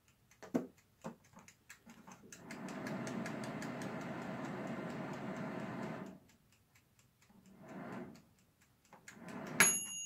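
Hooded hair dryer's blower running for about four seconds and then cutting out abruptly, over the steady ticking of its clockwork timer; the owner blames the cutting out on a very faulty switch. A sharp click with a brief ring comes near the end.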